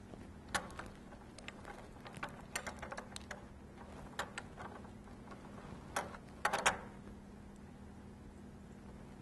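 Scattered small clicks and taps of soldering work: a soldering iron and a tiny slide switch being handled against a copper circuit board, coming in short bunches with the loudest cluster about six and a half seconds in. A faint steady hum runs underneath.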